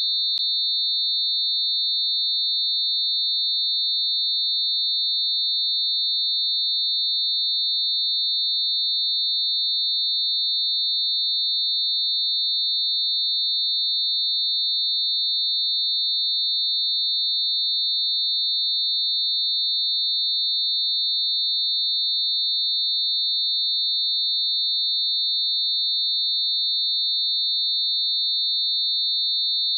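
A generated mix of a few pure sine tones close together around 4000 hertz, heard as one continuous high-pitched electronic whine that holds perfectly steady, with no change in pitch or loudness.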